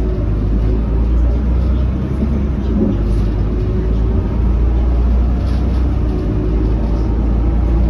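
Volvo B12BLE bus's rear-mounted six-cylinder diesel engine running while under way, with road rumble, heard inside the passenger cabin as a steady, loud low drone.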